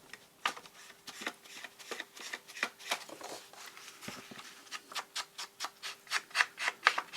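Ink being rubbed onto the edges of paper: short scratchy strokes, a few at first, then quicker at about three or four a second and louder in the second half.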